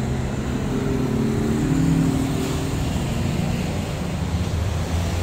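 A motor vehicle engine running steadily, with a low hum whose pitch shifts slightly in the first few seconds.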